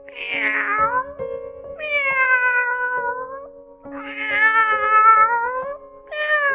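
Domestic cat meowing: three long, drawn-out meows, with a fourth starting near the end.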